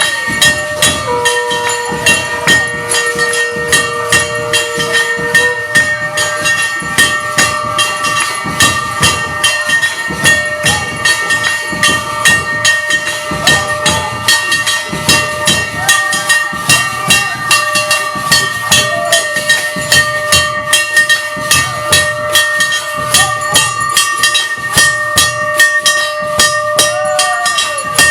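Temple aarti instruments: metal bells and cymbals struck in a steady, even rhythm over a continuous ringing tone. A second held tone sounds for a few seconds near the start.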